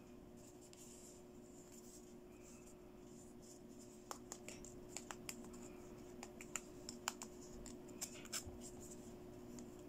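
Small plastic toy beauty accessories handled by hand, giving a run of light clicks and taps from about four seconds in, over a faint steady hum.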